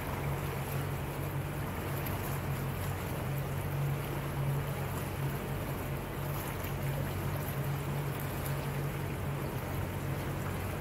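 Motorboat engine running steadily with a constant low hum, under a steady hiss of water rushing along the hull.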